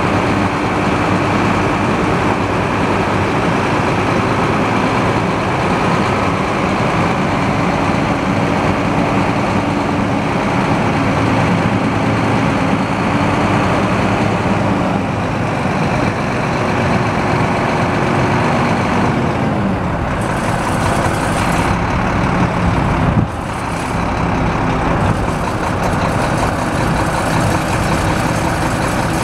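Semi tractor's diesel engine running steadily. Its pitch drops about two-thirds of the way through.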